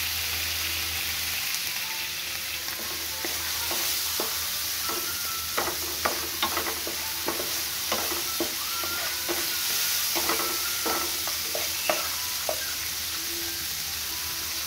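Onions, green chillies and spice paste sizzling in oil in a non-stick frying pan while a wooden spatula stirs them, with sharp scrapes and knocks of the spatula on the pan through the middle. The powdered spices are being fried into the masala.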